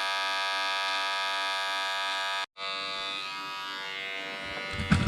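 Wahl Detailer electric hair trimmer buzzing steadily while trimming hair with its newly replaced, zero-gapped blade. The buzz drops out briefly about halfway through, then carries on slightly quieter, with a couple of light knocks near the end.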